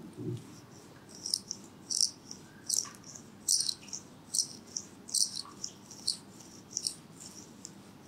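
A small handheld tool worked against hair and skin at the neck, making about a dozen short, crisp scratchy bursts at uneven intervals, with a soft thump at the very start.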